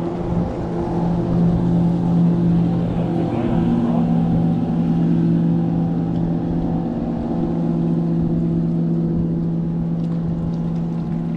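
A boat motor hums steadily, its pitch shifting slightly about three seconds in.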